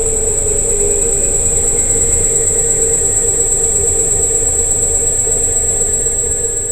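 Electric kick scooter riding at a steady speed: a steady motor whine with a thin, high-pitched electronic whine above it, over a low rumble of the wheels on the road.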